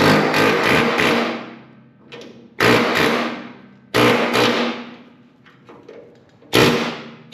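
Pneumatic air hammer (air chisel) chattering in four short bursts against a VW Beetle's steel floor pan, breaking the factory spot welds that hold the pan to the frame.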